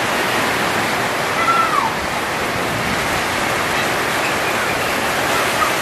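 Heavy rain falling on corrugated tin roofs: a steady, dense hiss.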